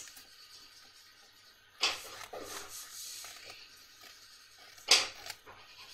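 Wax crayons rubbing on a sheet of paper as it is coloured in, quiet, with two louder sharp strokes, one about two seconds in and another about five seconds in.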